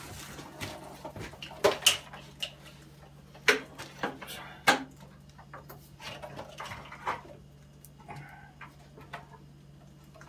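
A drop-in double-bowl sink knocking and clunking against the edges of a laminate countertop's cutout as it is lowered and set in place, in a string of sharp knocks, the loudest in the first five seconds, over a low steady hum.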